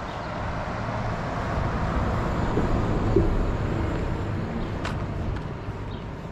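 City bus driving past on the street, its engine and tyre noise swelling to a peak about three seconds in and then fading away.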